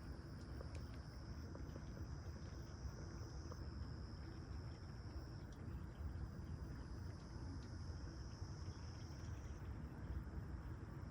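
Steady high-pitched chirring of insects, shifting between two close pitches a few times, over a constant low rumble.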